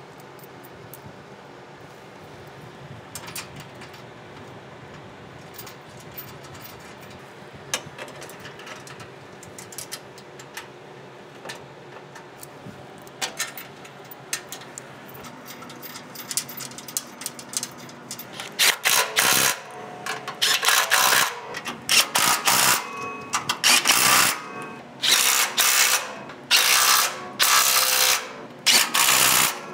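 Cordless impact driver run in about ten short bursts over the last third, driving bolts with star washers up into riv nuts on a metal catalytic-converter shield. Before that, only faint clicks of bolts and washers handled by hand.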